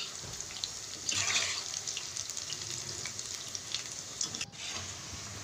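Battered soybean lollipops deep-frying in hot oil in a wok: steady sizzling with scattered crackles. The sizzling swells louder about a second in.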